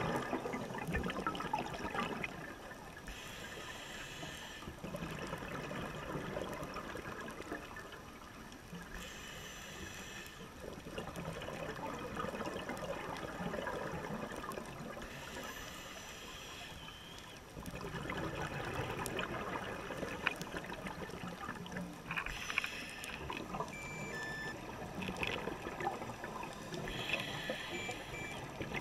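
Scuba regulator exhaust bubbles, heard underwater through a GoPro housing: five hissy bursts of bubbling about six seconds apart, each a diver's exhalation, over a steady low wash of water.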